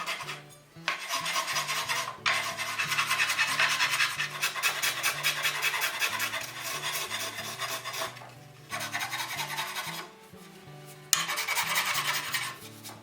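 A hand rasp scraping wood in quick back-and-forth strokes, in four runs broken by short pauses, over quiet background music.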